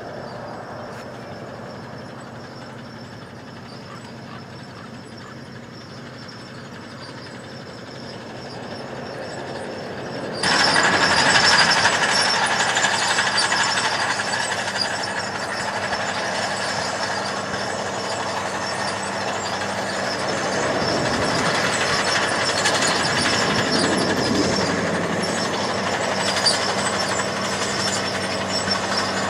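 Caterpillar crawler tractor's diesel engine running steadily under load as it pulls a disc harrow, slowly growing louder at first. About ten seconds in the sound jumps suddenly louder and brighter. A little past two-thirds through, the engine note briefly sags and recovers.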